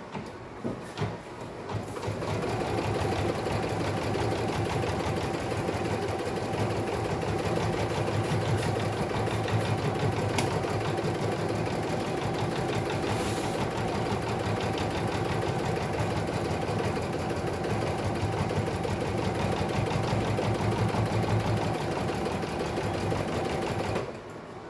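A Brother Innovis BP2150L embroidery machine stitches the placement outline for an appliqué snout. A few light clicks come first, then the machine starts about two seconds in, runs steadily, and stops shortly before the end.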